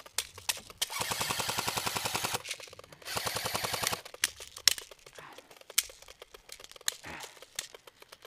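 Airsoft electric guns firing on full auto: a rapid burst of about a second and a half, a shorter burst about a second later, then a few scattered single sharp snaps.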